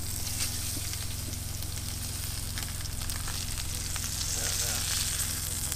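Salmon fillets sizzling in hot coconut oil and ghee in a nonstick frying pan as they are turned over with tongs, with a few light clicks. A steady low hum runs underneath.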